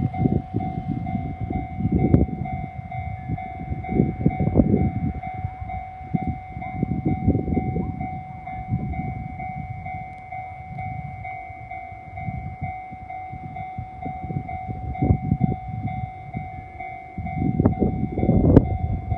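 Japanese level-crossing warning bell ringing steadily with its electronic tone, over an uneven low rumble. Near the end a louder rush and rumble builds as the 719 series electric train reaches the crossing.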